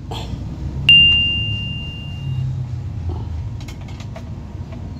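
A single sharp metallic strike about a second in that rings on clearly for over a second, over a low steady rumble.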